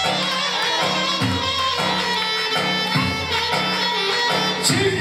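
Turkish folk dance music (oyun havası): a reedy wind-instrument melody over a steady low drum beat.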